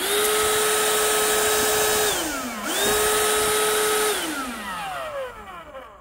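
Ryobi 18V ONE+ cordless hand vacuum switched on twice, each time whining up to speed with a rush of air and running steadily for about two seconds, then switched off and spinning down in a falling whine. The second spin-down trails off slowly near the end.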